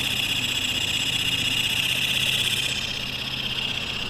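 Evening insect chorus, a steady high-pitched drone, over the low hum of an idling vehicle engine.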